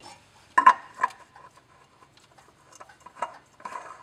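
An oil filter being spun by hand onto an oil filter sandwich adapter on the engine block. Two sharp metallic clicks come about half a second and a second in, followed by lighter clicks and scraping of the filter's metal canister.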